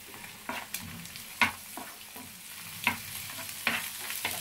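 Shallot, onion, garlic and egg frying in oil in a non-stick frying pan with a light sizzle, while a wooden spatula stirs and scrapes against the pan in a string of sharp knocks, the loudest about one and a half seconds in.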